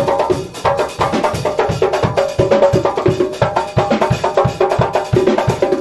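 Live church band music: a drum kit keeps a fast, steady beat under sustained instrumental chords.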